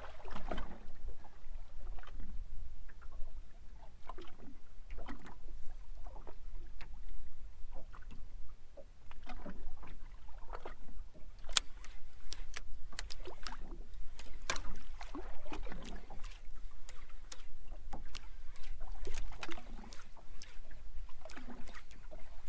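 Small waves lapping and slapping irregularly against a boat's hull, over a steady low rumble.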